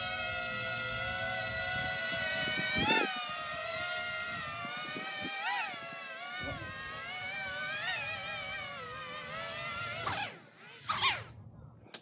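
Remote-control flying wasp model buzzing in flight: a steady electric-motor and propeller whine whose pitch swells up and settles back several times with the throttle. Near the end the pitch falls steeply twice as it comes down onto the gravel, and the whine cuts off.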